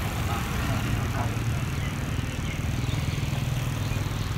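Steady low hum of an engine idling, with faint talking in the background.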